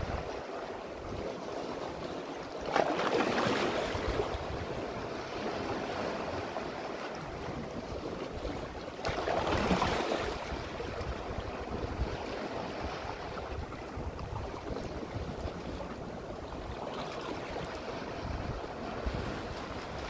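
Sea waves washing in among rocks, a steady rush of surf with two louder surges about three seconds and nine seconds in. Wind buffets the microphone with a low irregular rumble underneath.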